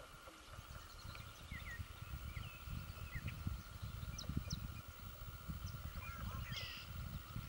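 Birds calling in the early morning: a scatter of short chirps and whistled notes, with a louder, harsher call about six and a half seconds in, over a steady high drone and a low, uneven rumble.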